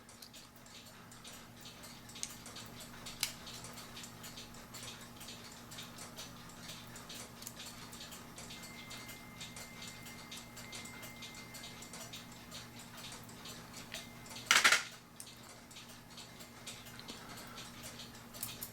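Small metal clicks and clinks of a screwdriver working on a cuckoo clock's brass movement, prying and twisting the cuckoo-bird spring off the frame. One brief, louder scrape comes about fourteen and a half seconds in.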